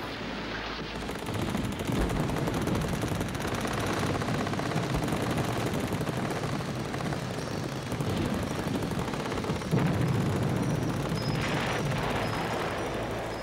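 Battle sounds: sustained rapid gunfire with explosions, a continuous din that swells about two seconds in and again around ten seconds.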